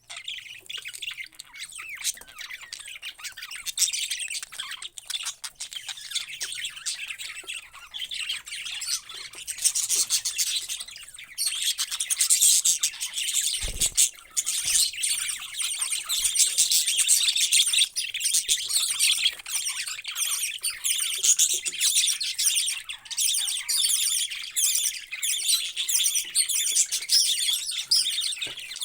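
Many parrots chirping and chattering together in a dense, continuous stream of overlapping high calls, growing busier and louder partway through, with a brief low knock near the middle.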